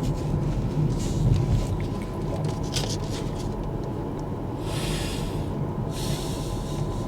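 Tyre and road noise from a Kia EV6 electric car driving: a steady low rumble, with two brief swells of hiss about five and six seconds in.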